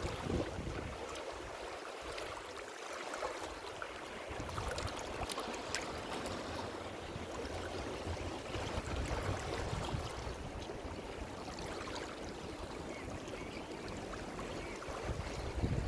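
Ocean waves washing in, a steady rush of surf with low rumble.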